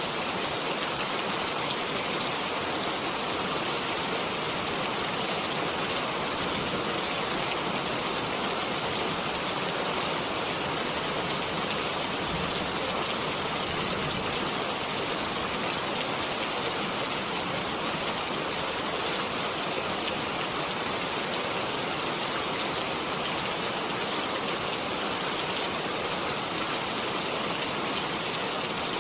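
Steady rain falling, an even hiss of many drops with fine scattered patters and no change in strength.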